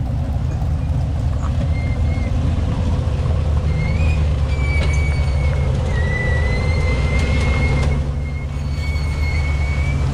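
Off-road 4x4's engine running at low revs, a steady deep rumble. A thin, high-pitched squeal comes and goes over it.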